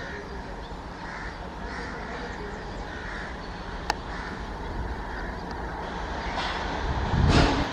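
Crows cawing again and again, about once a second, over the low rumble of a WAP-4 electric locomotive and its train drawing nearer and growing louder. A sharp click comes about four seconds in, and a loud rush near the end.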